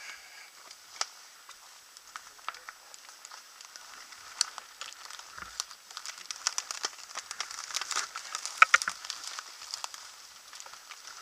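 Mountain bike riding through woodland undergrowth: dry leaves, twigs and brush crackling and snapping under the tyres and against the bike, denser and louder in the second half.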